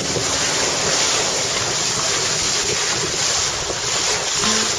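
Water rushing and splashing past the hulls of a Farrier F9AX trimaran under sail, a steady hiss with wind blowing on the microphone. Plucked-string music comes in near the end.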